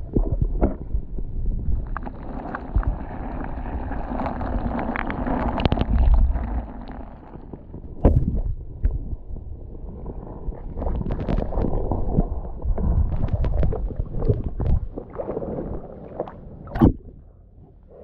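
River water sloshing and gurgling around a camera held underwater, heard muffled and deep, with scattered sharp knocks and clicks, the loudest about eight seconds in and again near the end.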